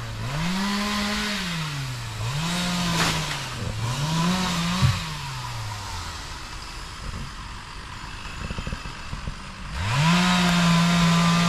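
Two-stroke chainsaw engine revved up and down three times in a row, then dropping back to idle for a few seconds before being revved again and held at high speed near the end. A single sharp knock comes about five seconds in.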